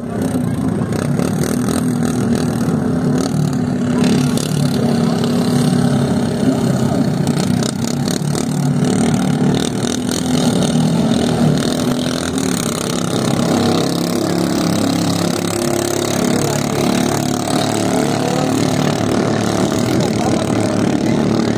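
Small engines of outrigger race boats (bangcas) running loud and steady.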